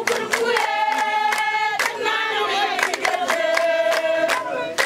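A group of voices singing and chanting together, holding long notes that shift pitch every second or so, with a few sharp claps or strikes now and then.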